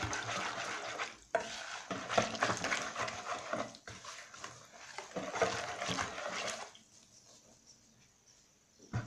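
A wire balloon whisk beating flour into a wet batter in a plastic mixing bowl: quick, continuous scraping and sloshing. It stops about seven seconds in.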